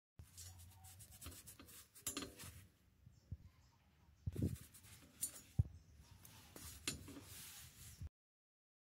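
Sponge rubbing and scrubbing over a rusty wrought-iron frame in short scratchy strokes, with a few sharp knocks against the metal in between.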